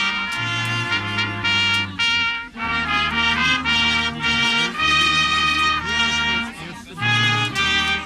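Brass band playing, trumpets carrying the tune over a stepping low bass line, with short breaks between phrases about two and a half and seven seconds in.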